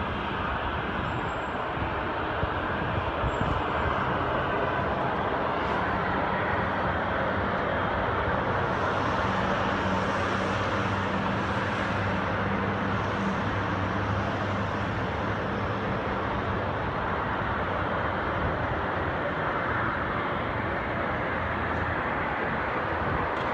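Steady outdoor urban noise, like road traffic, with a low droning hum that grows stronger in the middle and then fades.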